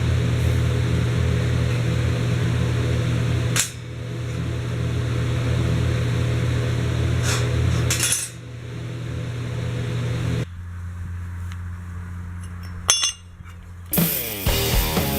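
A power tool runs steadily with a low hum, broken by a few sharp clicks. It drops away about ten seconds in. Rock music starts near the end.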